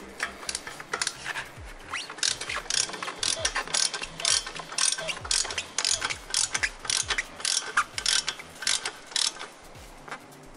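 Ratchet wrench clicking in quick runs of strokes while tightening the last exhaust header nut at the engine, stopping near the end.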